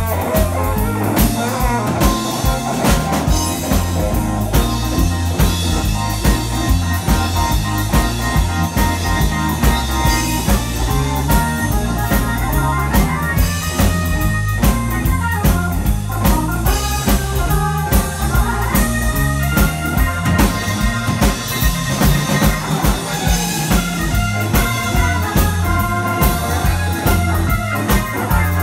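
Live blues band playing: electric guitar over electric bass, drum kit and a Nord Electro 5 keyboard, with a steady beat.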